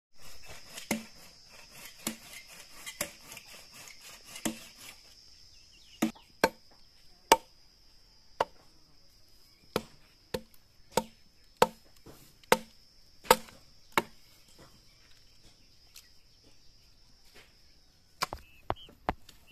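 Hatchet chopping firewood: sharp wooden chops roughly once a second, then a pause and a quick run of chops near the end. A steady high whine runs underneath.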